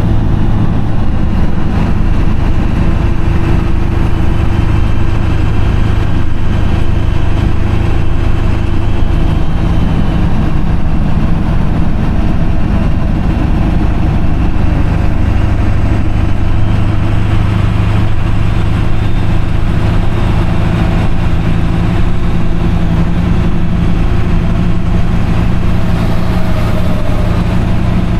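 Pickup truck cruising at steady highway speed, heard from inside the cab: an even low engine drone over a haze of tyre and road noise.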